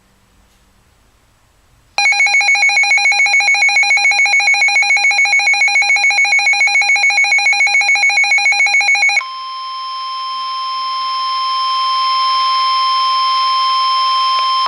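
A weather radio's built-in alert alarm buzzing in rapid pulses for about seven seconds. It then gives way to the steady 1050 Hz NOAA Weather Radio warning alarm tone, which grows louder for a few seconds: the signal that a warning broadcast is about to follow.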